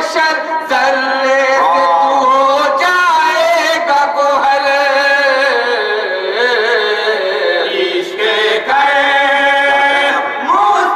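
A group of men chanting a naat together in unison, unaccompanied, in long held notes that slide slowly up and down in pitch.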